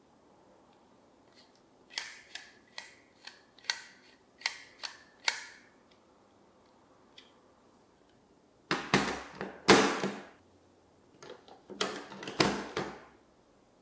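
Marbles clicking and clattering through a VTech Marble Rush plastic marble run: a quick series of sharp clicks, then two longer bouts of rattling clatter in the second half.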